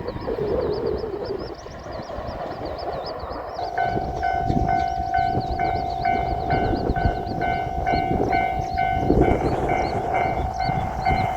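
Japanese railway level-crossing warning bell starting about three and a half seconds in and ringing its rapid, steady kan-kan pattern, about two strokes a second, over a low rumble. A high chirping repeats quickly throughout.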